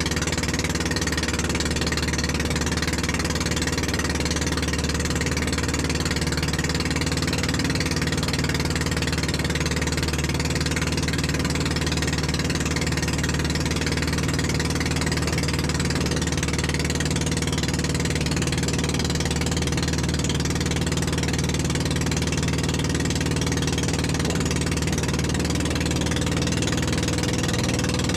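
Small wooden fishing boat's (bangka's) motor running steadily while the boat is underway, an even unchanging drone with no change in speed.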